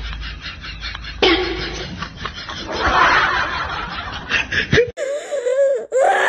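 Person snickering and laughing in quick repeated bursts, cut off sharply about five seconds in.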